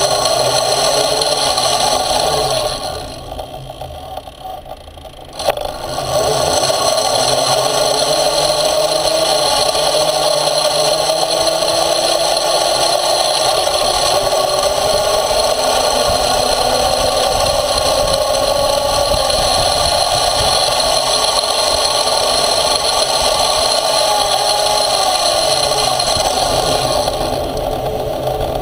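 Small engine on motorized off-road skates running under way, its pitch slowly rising and falling. About three seconds in it drops off for a couple of seconds, then there is a sharp click and it picks back up.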